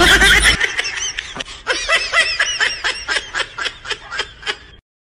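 Added laughter sound effect: one voice laughing in quick repeated bursts, about four a second, that cuts off suddenly near the end. Backing music runs into the first half-second.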